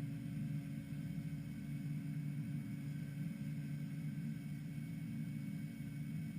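Exeron Digma HSC 800 five-axis high-speed CNC milling machine running, a steady low hum with a few fainter constant tones above it.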